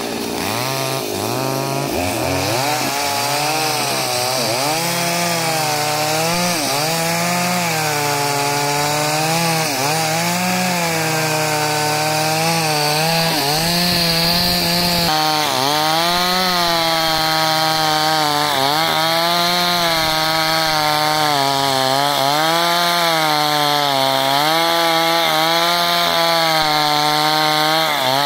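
Two-stroke chainsaw ripping lengthwise through a very hard log, running near full throttle throughout. Its pitch sags and recovers every second or two as the chain bogs in the cut.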